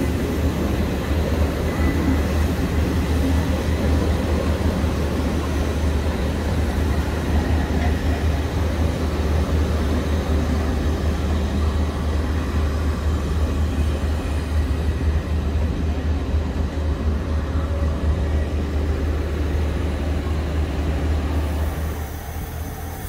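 Passenger carriages of a steam-hauled train rolling past the platform at close range, a steady rumble of wheels on the rails that eases off near the end.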